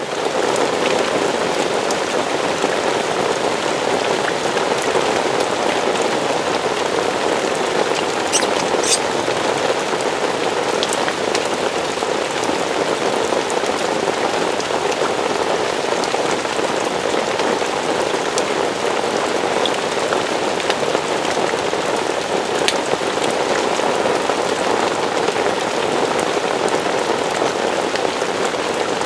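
Steady rain falling on a surface, a dense even patter with a few sharper drop ticks scattered through it.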